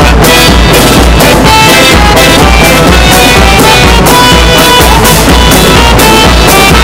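Loud background music with drums and a steady beat.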